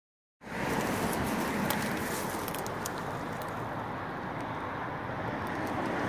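Steady rushing outdoor noise of wind and distant road traffic, starting a moment in, with a few faint ticks in the first half.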